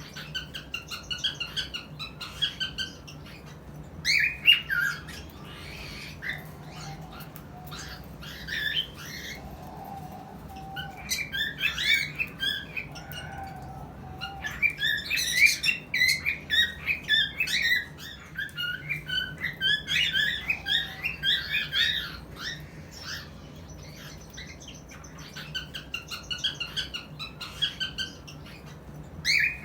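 Cockatiel calling in bouts of rapid chirps, whistles and squawks, with short pauses between the bouts; the busiest stretches come about halfway through and again a few seconds later.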